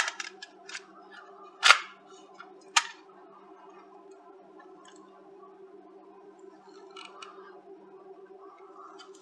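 Plastic case of a Retekess V115 radio being handled and fitted back together: a few sharp clicks and knocks in the first three seconds, the loudest about a second and a half in, then a couple of faint clicks later on. A faint steady hum runs underneath.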